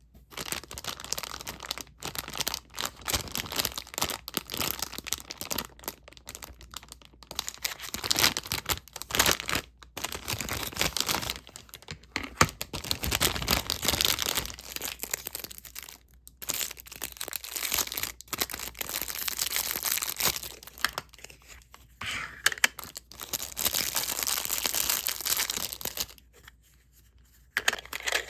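Close-up crinkling, rustling and tearing noises of craft materials being handled for polymer clay work, in irregular stretches with brief pauses and a longer lull near the end.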